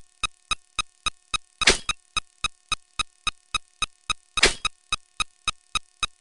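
Rapid, evenly paced electronic blip sound effects, about three or four short pitched beeps a second. A louder noisy burst comes about every three seconds, twice here, near the start and past the middle.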